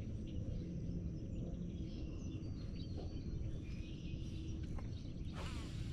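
Lakeside outdoor ambience: a steady low rumble with faint bird chirps, and a brief noisy burst near the end.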